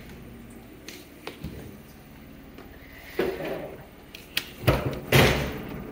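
A restroom stall door being handled, with a few light clicks and then several sharp knocks and bangs. The loudest bang comes about five seconds in.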